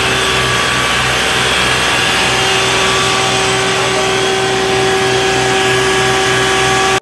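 Isuzu FVZ water tanker truck's pump running hard and its roof-mounted water cannon spraying a high-pressure jet: a loud, steady rushing hiss with a steady whine and a low pulsing beneath.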